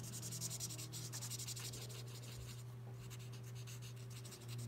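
L'emouchet alcohol marker nib scratching across paper in quick, short back-and-forth colouring strokes, with a brief pause about halfway through. A steady low hum runs underneath.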